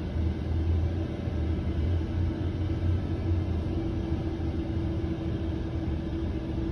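Steady low rumble with a faint, constant hum above it.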